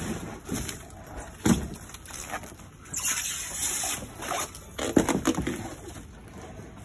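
Irregular rustling and scraping of plastic stretch wrap and cardboard as a wrapped steel roof rack is handled, with sharp knocks about one and a half seconds in and again about five seconds in as the frame bumps.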